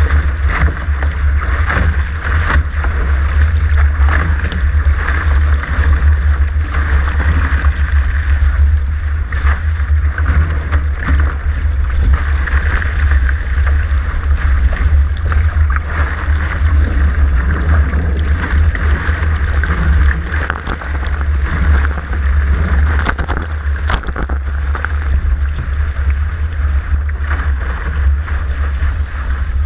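Water rushing past a sailing catamaran's hull at speed, with heavy wind buffeting on the hull-mounted microphone as a constant low rumble. A few sharper splashes of spray break through about two-thirds of the way in.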